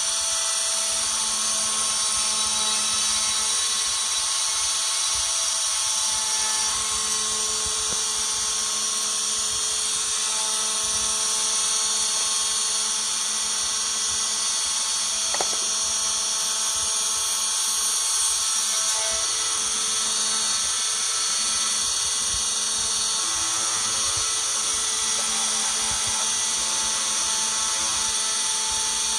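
Small high-speed spindle motor of a mini CNC machine running steadily with a high-pitched whine while drilling a circuit board, with a single click about halfway through.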